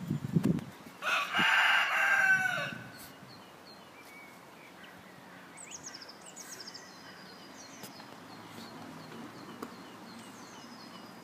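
A rooster crowing once: one long call of nearly two seconds, about a second in, falling in pitch at the end. Small birds chirp faintly afterwards, and a short low rumble comes at the very start.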